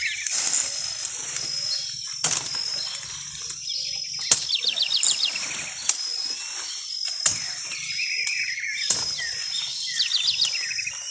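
A machete chopping cassava stems: about five sharp chops roughly one and a half to two seconds apart, with leaves and branches rustling between them. A bird trills briefly in the background a few seconds in and again near the end.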